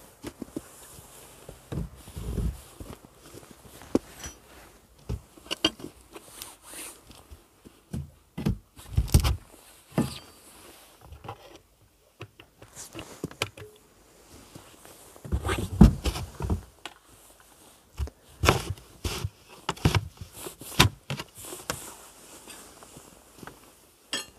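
Irregular knocks, scrapes and footsteps of hands-on work, with heavier thumps about two seconds in, around nine seconds, around sixteen seconds and several more near the end.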